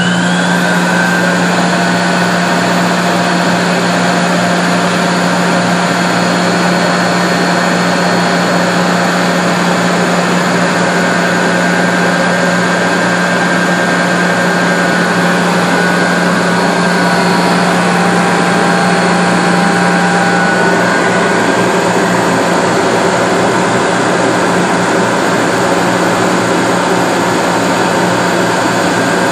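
Oil burner of a 1966 Cleaver Brooks boiler running steadily and loudly: a constant rushing noise from its blower and flame, with a low hum beneath.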